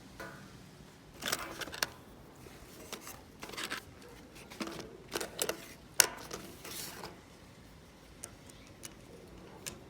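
Hands handling a small wristband device and its packaging: scattered clicks and short rustles, the sharpest click about six seconds in.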